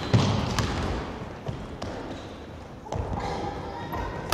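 Basketball bouncing on a wooden gym floor: one loud bounce just after the start, a few lighter ones over the next two seconds, and another sharp bounce at the very end.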